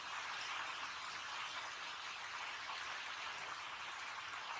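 Heavy rain falling steadily, an even hiss without breaks.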